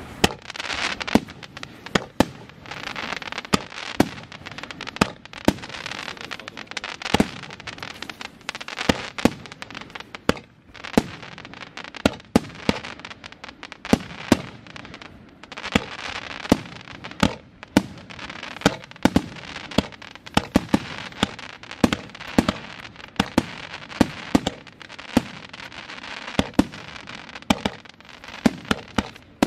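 A 36-shot colour crackling firework cake firing in quick succession: sharp bangs of launches and bursts every half second to a second, over a dense, sizzling crackle from the crackling stars.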